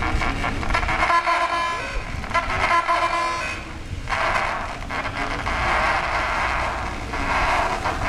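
Car-alarm siren sounds played through horn loudspeakers mounted on a car's roof. A rapid pulsing chirp gives way to a steady tone about a second in, and from about four seconds in it changes to bursts of harsh, hissing noise.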